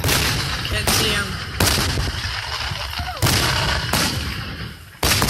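Aerial firework shells bursting overhead: about seven loud booms, roughly a second apart, the last two close together near the end. Each boom trails off into a low rumbling echo.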